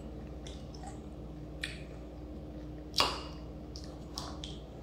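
Metal fork clinking against a ceramic bowl of salad: a few sharp clicks, the loudest about three seconds in with a brief ring.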